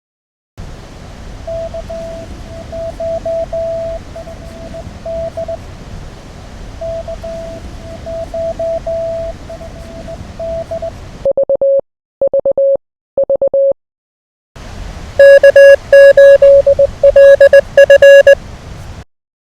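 Morse code (CW) keyed on a ham radio transceiver: a fainter station's dots and dashes as a steady tone over band hiss. After about eleven seconds a slightly lower, clean tone is keyed in three short groups, and then a much louder keyed tone comes in over the hiss near the end.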